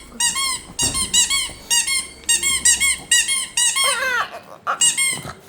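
A squeaky toy squeezed over and over in quick bursts of short, high squeaks while a pet plays with it. About four seconds in there are a few lower, falling squeals.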